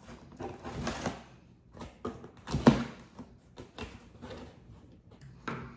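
Box cutter slitting the packing tape on a large cardboard shipping box, with cardboard scraping and rustling and several sharp knocks. The loudest is a crack about two and a half seconds in.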